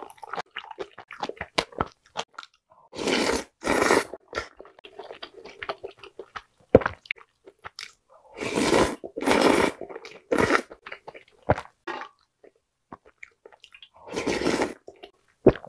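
Close-miked eating of galbitang with rice and glass noodles: wet chewing clicks throughout, with three louder slurps from a ladle, a few seconds in, around the middle, and near the end.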